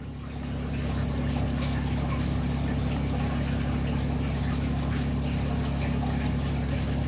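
Aquarium filter pump running: a steady hum with water moving, getting louder about a second in and then holding steady.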